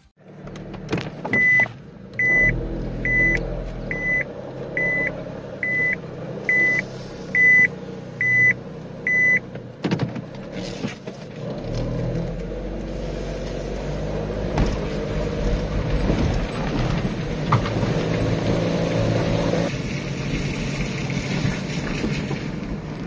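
A car's electronic warning beeper gives ten short, evenly spaced beeps, a little under one a second, over a low engine hum. After that the engine and road noise grow and run steadily, as from a car under way.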